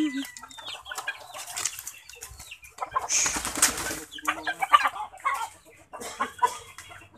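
Chickens clucking with short, scattered calls, and a brief burst of noise lasting about a second, about three seconds in.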